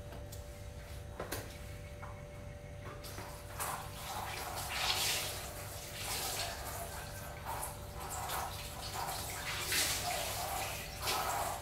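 Water running from a kitchen tap into a stainless steel sink and splashing as dishes are rinsed under it; it starts about three seconds in and swells and eases in waves. A couple of light knocks of handled dishware come before it.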